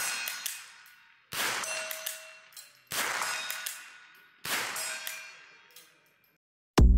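Shots from an FN Browning Trombone .22 rimfire pump-action rifle: three sharp cracks about a second and a half apart, each ringing out in a long echo. The tail of one more shot fired just before is heard at the start. Music comes in near the end.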